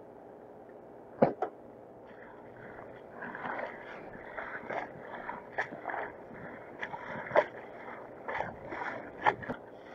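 Water rushing and splashing along the hull of a small sailing dinghy under way through choppy water, with irregular sharp slaps of waves against the hull; the loudest slaps come about a second in and again after about seven seconds.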